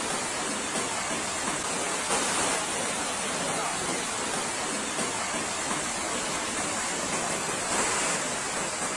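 Muddy floodwater rushing down a street and washing around parked cars' wheels, a steady, unbroken sound of running water.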